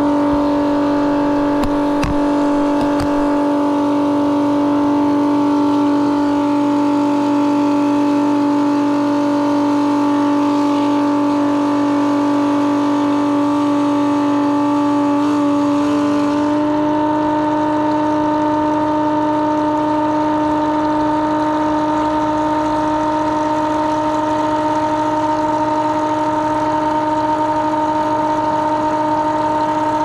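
Milwaukee transfer pump running steadily, pumping water through its hoses, with a constant motor hum. Its tone shifts slightly about halfway through.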